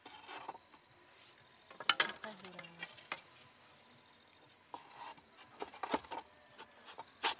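Bamboo poles and slats knocking and clattering against each other and the bamboo frame as they are handled and fitted into place. There is a cluster of sharp knocks about two seconds in, a few more around six seconds, and a strong knock near the end.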